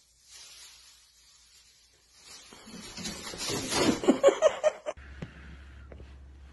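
Plastic bag rustling as a cat paws and pushes its head into it, growing louder, then a person laughing loudly in quick peals about four seconds in.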